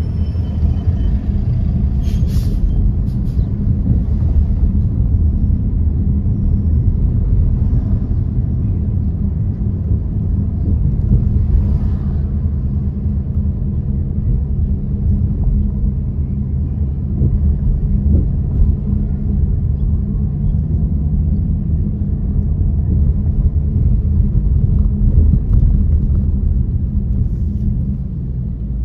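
Steady low road rumble of a car driving on city streets, heard from inside the cabin: tyre and engine noise. A couple of brief clicks sound about two seconds in and again near twelve seconds.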